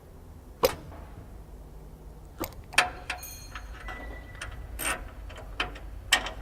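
Hand tools clicking and knocking on the metal fittings of a cable termination as its connections are tightened: a handful of sharp, irregular metallic clicks, with a short ringing tone just after the middle.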